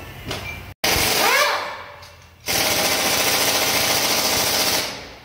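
Impact wrench hammering on bolts on top of a Scania 124 diesel engine block as it is taken apart. There is a short burst about a second in, then a steady rattling run of about two seconds.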